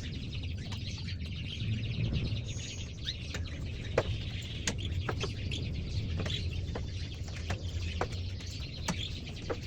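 Caged canaries chirping in short, scattered calls, with sharp clicks here and there, the loudest about four seconds in, over a steady low hum.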